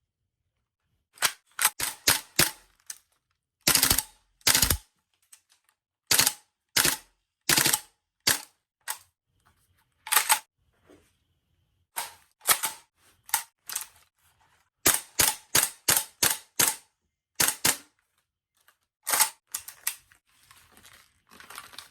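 Tokyo Marui Howa Type 89 gas airsoft rifle firing: sharp cracks in quick strings of several shots and some single shots, with short pauses between strings. The title has the gas gun running very strongly in the heat.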